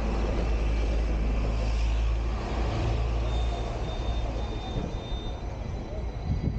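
Hong Kong double-decker tram running along its tracks, a steady low rumble of motors and wheels on the rails. A little past the middle comes a row of four short, evenly spaced high beeps.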